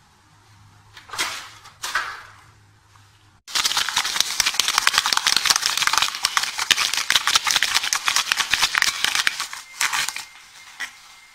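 Two short scuffles as a kitten hops down onto a wooden floor. After that, a cat clawing and biting a plastic drink bottle makes about six seconds of dense, rapid crackling and clicking of crinkling plastic, which dies away near the end.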